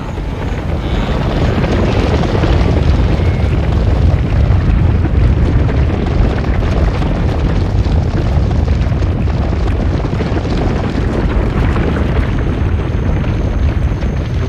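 Rumble of a large wildebeest herd galloping, the massed hooves drumming on dry ground. It swells over the first couple of seconds, then stays loud and steady.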